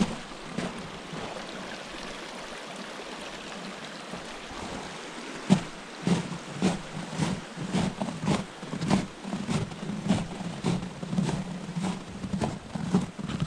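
Stream water running, then from about five and a half seconds in, footsteps tramping through snow at about two steps a second.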